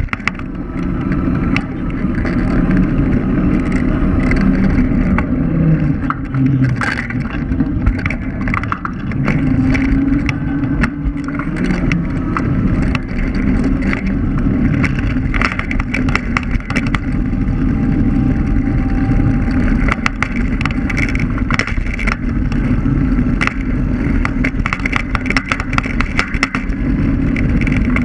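Ride noise from an electric scooter on asphalt, heard from a camera mounted low on the scooter: a steady low rumble of tyres and road, with frequent short rattles and knocks as it runs over bumps and cracks.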